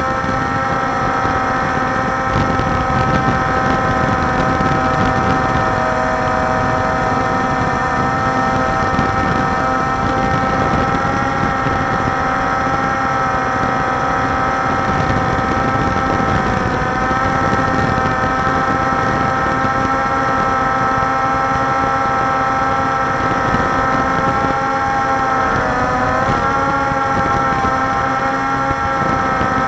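Walkera Scout X4 quadcopter's motors and propellers whining steadily as it hovers, heard from the drone's own camera over a rush of wind and propeller noise. The pitch dips and wobbles briefly near the end as the motors change speed.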